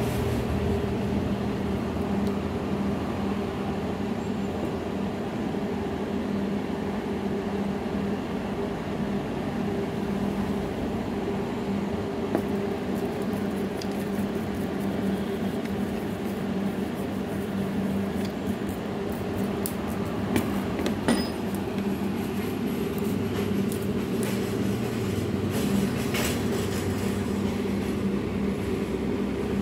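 Steady mechanical hum, like a small motor or fan running. From about halfway on there are light clicks and taps as a circuit board is handled, with one sharper click a little after the two-thirds mark.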